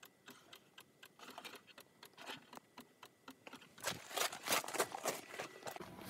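Sped-up audio of rapid, irregular clicks and crunches, growing denser and louder about four seconds in as footsteps cross gravel.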